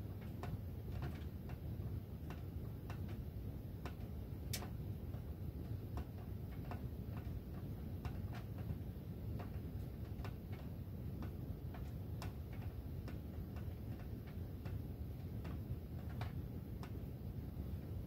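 Ductwork ticking and clicking at irregular intervals, roughly two to three times a second, with one sharper click about four and a half seconds in, over a steady low rumble.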